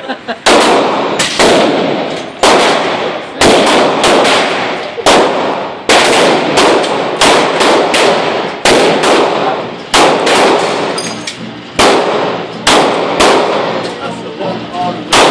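Semi-automatic pistol fired shot after shot in an indoor range, about two dozen shots at an uneven pace, often one or two a second, each ringing off the walls briefly.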